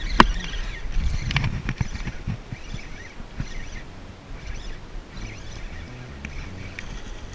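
Spinning rod and reel in use: a sharp click about a quarter second in and a few knocks of handling as the lure is cast. Then the spinning reel is cranked to retrieve it, a soft sound repeating about every two-thirds of a second.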